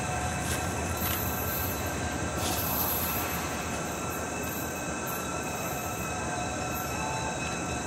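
Diesel locomotive hauling a passenger train: a steady low engine rumble with a thin, high, even whine over it.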